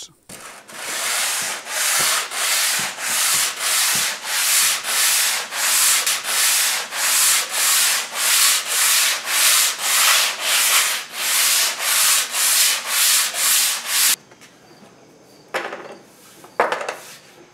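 Hand sanding with sandpaper on polyurethane-coated, cherry-stained wood, smoothing out imperfections between finish coats. It goes back and forth in even strokes, about two a second, stops about 14 seconds in, and is followed by a few brief handling knocks.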